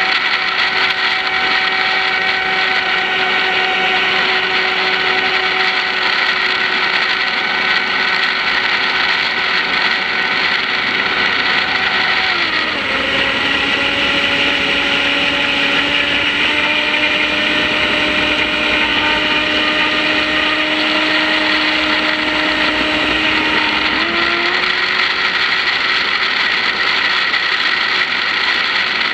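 RC boat's 2075kV brushless motor whining steadily over a hiss of water. Its pitch drops about twelve seconds in and steps back up about twelve seconds later.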